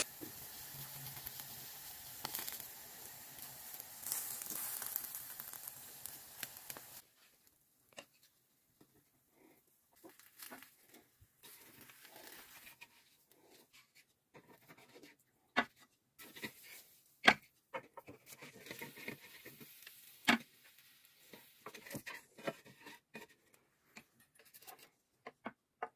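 Eggs frying in a non-stick egg pan with a faint steady sizzle, which cuts off abruptly about seven seconds in. After that come scattered taps, scrapes and a few sharper knocks of a wooden spatula against the pan and plate as the fried eggs are lifted out.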